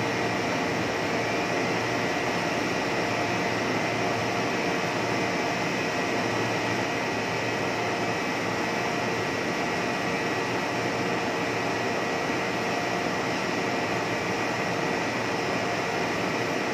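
Blown-film plastic extrusion machine running: a steady machine drone and rush of air with a faint constant whine.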